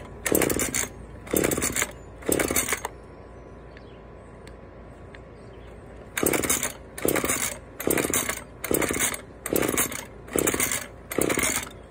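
Husqvarna two-stroke chainsaw being pull-started again and again: about ten short cord pulls, three in quick succession, then after a pause of about three seconds a run of seven at about one a second. The engine turns over with each pull but never catches, so the saw fails to start.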